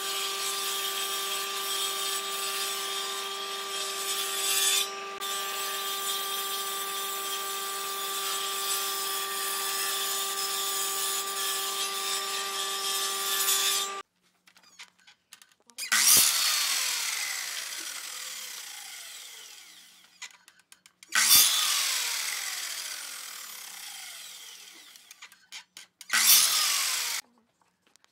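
Table saw running steadily and cutting wood until about halfway through, when it stops suddenly. Then a miter saw makes three short cuts in pine, the first two each followed by a long falling whine as the blade spins down.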